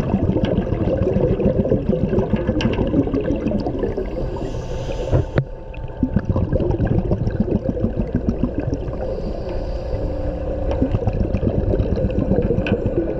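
Underwater sound heard inside a shark-diving cage: water sloshing and bubbling against the camera, with a faint steady hum underneath and a single sharp knock about five seconds in.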